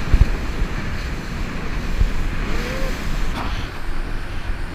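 Wind buffeting the microphone and water rushing past the hull of a small boat running at speed across open sea. There are a couple of low thumps, one right at the start and one about two seconds in.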